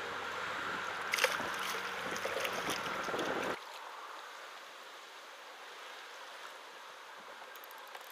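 Choppy water slapping and splashing against a kayak hull, with a few sharp knocks in the first seconds. About three and a half seconds in it cuts abruptly to a quieter hiss of wind and water.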